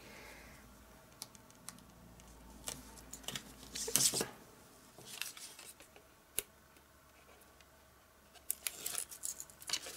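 Double-sided Tear & Tape adhesive being pulled off its roll and pressed along the edge of cardstock: a short tearing sound about four seconds in, with light clicks and rustling of the card being handled, busier near the end.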